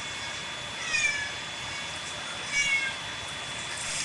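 A cat crying out twice in distress while being bathed, two short high cries falling in pitch.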